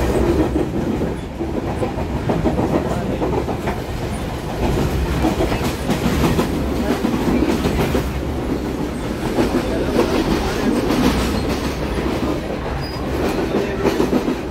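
Passenger train running along the line, heard from inside the carriage: a steady rumble with the wheels clacking over rail joints and points.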